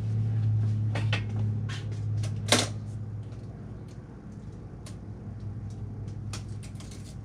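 Scattered light knocks and clicks of parts being handled, the loudest about two and a half seconds in, over a steady low hum that fades slightly after the first few seconds.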